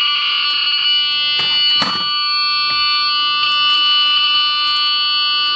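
Lightning detector's alarm sounding loudly as the detector triggers: a steady, shrill multi-tone buzz. There is a short knock about two seconds in.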